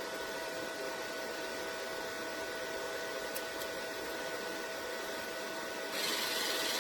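Steady fan-like whir with a few faint steady tones, as from a small inverter welder's cooling fan running. About six seconds in, a brighter hiss comes in on top.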